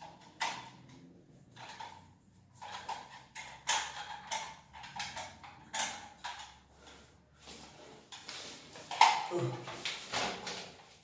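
Plastic parts of a toilet cistern fill valve being handled and fitted together: irregular clicks, knocks and rattles, with a louder knock about nine seconds in.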